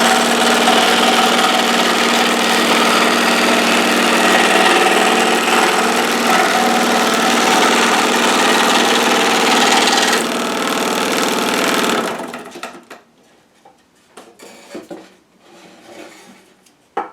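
Homemade wooden scroll saw driven by an electric motor, running steadily and loudly. About twelve seconds in it is switched off and quickly runs down, leaving a few faint clicks and knocks.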